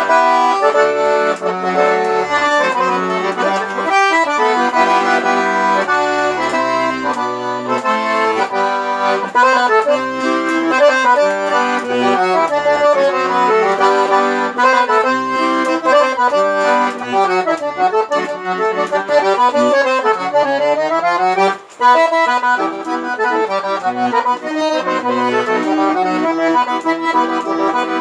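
Accordion (sanfona) playing an instrumental passage in traditional forró style: quick runs of notes over sustained chords, with a brief break about three-quarters of the way through.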